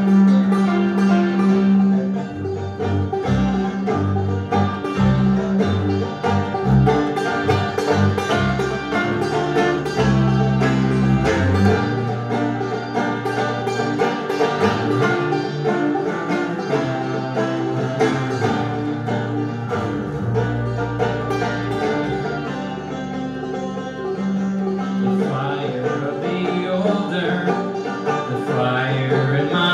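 Live instrumental music: a banjo picking a quick, steady stream of notes over an upright double bass bowed in long, held low notes.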